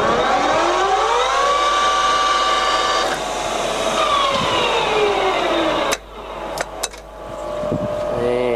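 Colchester Triumph 2000 centre lathe's spindle and geared headstock whining up to speed at 1500 rpm and holding there, then falling in pitch as the spindle winds down. A few sharp clicks follow, and the gear whine starts to rise again near the end.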